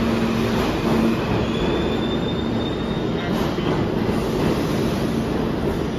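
Subway train running past the platform: a steady rumble of steel wheels on the rails. A thin, high wheel squeal rises over it from about a second and a half in until about three seconds in.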